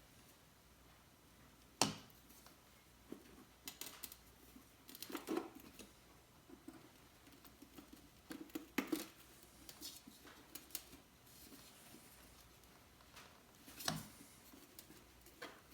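Scattered clicks, clinks and a few sharper knocks of hand tools and metal parts being handled while the outer primary chain case cover is worked off a motorcycle. The four loudest knocks fall about 2, 5, 9 and 14 seconds in, with lighter ticking between them.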